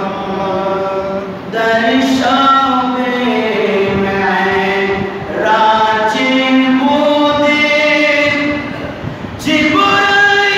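A man's unaccompanied devotional chanting into a microphone: long, drawn-out melodic phrases with gliding held notes, broken by short breaths about every four seconds.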